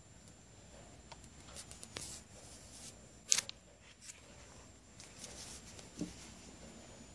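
A few faint clicks and light handling noises from hands working a laptop, the sharpest click about three seconds in and a soft thump near the end, over quiet small-room tone.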